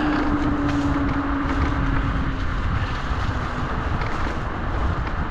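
TeeWing Mars XTR 10000W electric scooter riding on a snowy trail: wind noise on the microphone and a steady rumble from the tyres, with a steady motor whine that sinks slightly in pitch and fades out about halfway through.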